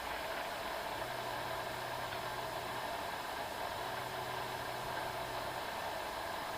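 A person snoring in a slow, regular rhythm: three low buzzing snores of about two seconds each, separated by short pauses, over a steady background hiss.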